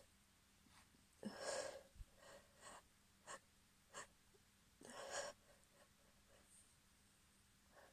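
A woman's gasping in-breaths, one about a second in and another about five seconds in, with short faint sniffs between them: her breath catching in the build-up to a sneeze.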